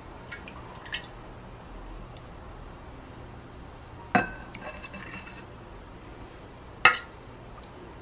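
Metal ladle clinking against a glass bowl as cold broth is poured over noodles: two sharp, ringing clinks about three seconds apart, with light clinks and pouring between them and a couple of faint taps earlier.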